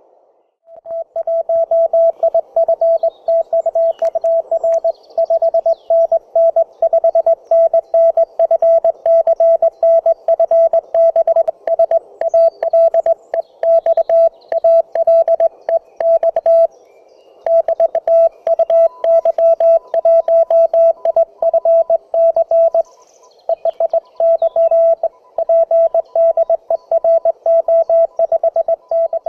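Morse code (CW) from a home-made 1 W amateur radio transceiver: a single mid-pitched tone keyed on and off in dots and dashes, with two short pauses in the keying, one near the middle and one about two-thirds of the way through.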